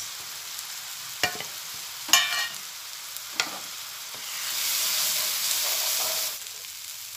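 Onions, tomato and freshly added ground spices sizzling in hot oil in a frying pan, with a few sharp knocks of a utensil against the pan. The sizzle swells louder for about two seconds past the middle, then settles back.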